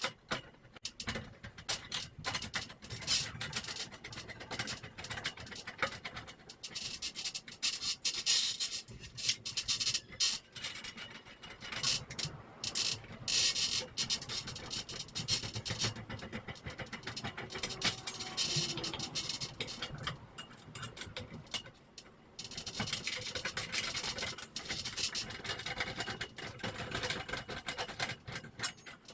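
Irregular rubbing and scratching noises that go on throughout, with many short scrapes and no steady tone or rhythm.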